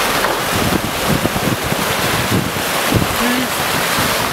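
Strong wind buffeting the microphone over the rushing of water and waves around a sailing yacht under way.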